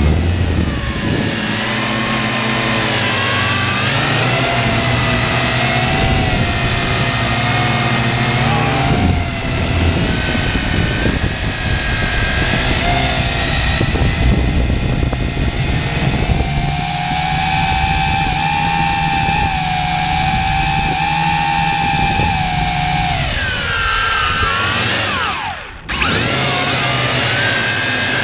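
Drone's motors and propellers whining, heard from the camera on board, the pitch rising and falling as the throttle changes. Near the end the pitch glides down, the sound drops out briefly, then picks up again.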